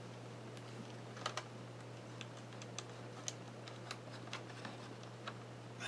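Faint, scattered small plastic clicks and taps as a thin ribbon cable is worked into its clamp-type connector inside a laptop.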